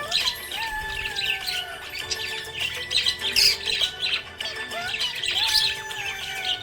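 Budgerigar chattering and chirping in a rapid, continuous stream of short high chirps, over background music with held, slowly falling tones.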